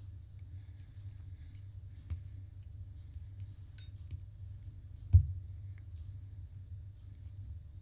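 Soft clicks of interchangeable circular knitting needles being worked, over a low steady hum, with one dull thump about five seconds in.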